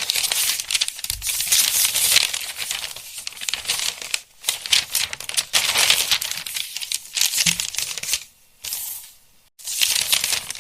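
Paper pages of a book being flipped through rapidly, a dense papery fluttering in several long runs with brief pauses about four seconds in, about eight seconds in and near the end.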